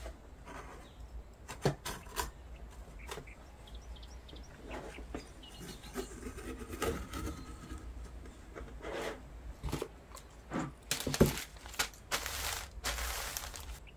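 Light knocks and scrapes of a knife worked along the edge of a metal baking tray to loosen a sheet sponge cake. Near the end comes a louder stretch of baking paper rustling as hands smooth it flat over the cake.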